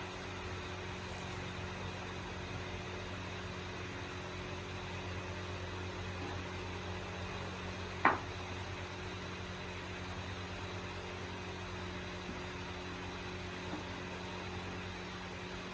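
Steady machine hum, like a motor or fan, with one sharp knock about halfway through.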